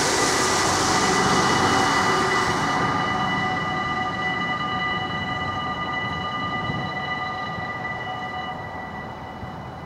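Level-crossing warning bells ringing steadily as the crossing barriers lower, fading out near the end. A vehicle passing on the wet road hisses over the first three seconds, then dies away.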